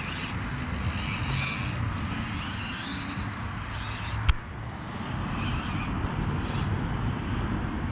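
Axial SCX24 Deadbolt micro crawler's small electric motor and gears running as it crawls over the obstacle course, with one sharp click about four seconds in.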